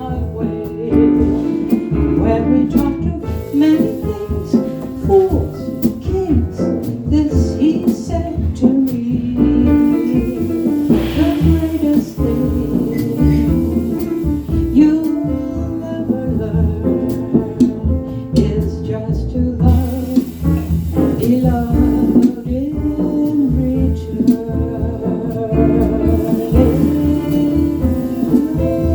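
Live jazz band playing: a woman singing over piano, bass and drums.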